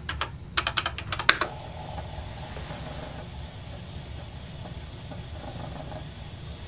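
Keys clicking on a TRS-80 Model I keyboard as a command is typed, a quick run of keystrokes in the first second and a half. After that comes a steady low running sound from the floppy disk drive as the program loads.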